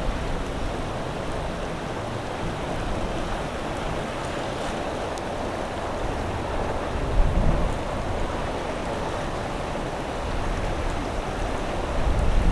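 Steady wash of waves and wind at an ocean inlet, with a low rumble underneath and a brief swell about seven seconds in.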